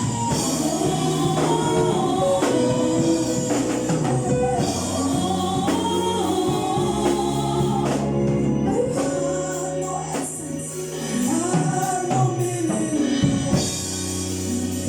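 Gospel choir singing with a backing band: held bass notes underneath and percussion strokes throughout.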